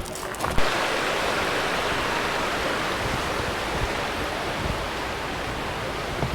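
Waterfall: a steady rush of falling water that sets in about half a second in.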